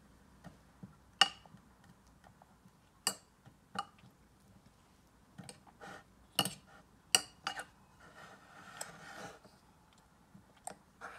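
A small metal fork clicking and scraping against a plastic bowl as a toddler picks up banana pieces. It gives about eight sharp clicks at uneven intervals, with a softer scrape a little past the middle.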